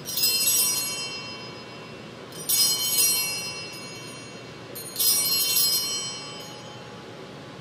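Altar bells rung three times, about two and a half seconds apart, each ring a bright, high jingle that fades away: the signal of the elevation of the consecrated host at Mass.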